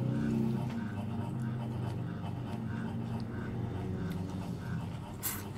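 Chewing and mouth sounds of a person eating a ripe strawberry, with a low steady hum in the first second and one sharp click near the end.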